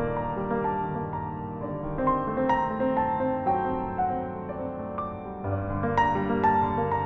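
Solo grand piano playing a melody over held chords, with fuller struck chords at about two and a half seconds and again near six seconds.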